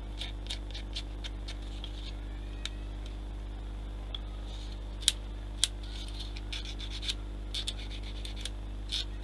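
Small plastic model-kit parts being handled and worked at the bench: light scratching and scraping with scattered small clicks, two sharper clicks a little past the middle.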